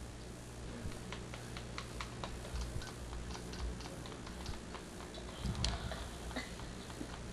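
Irregular light clicks and taps, several a second, over a steady low hum, with a denser cluster of clicks a little over halfway through.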